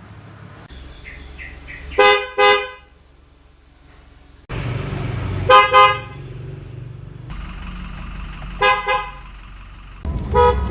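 Car horns honked in pairs of short toots, a new horn about every three seconds: four double toots, each with its own pitch, over a low hum that changes with each car.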